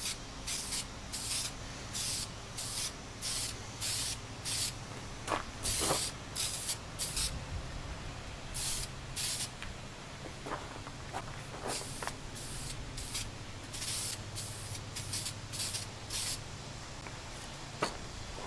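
Krylon aerosol spray paint can hissing in many short bursts, about one or two a second, stopping a couple of seconds before the end. These are light dusting passes of paint, kept dry so the paint does not run under the stencil.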